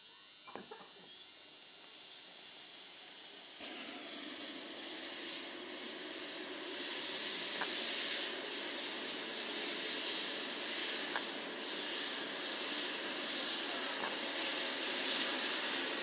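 Rescue helicopter's turbine engine starting up on the pad: a thin whine rises steadily in pitch while the engine and rotor noise grows louder. There are a few clicks about half a second in, and the noise jumps up suddenly about three and a half seconds in.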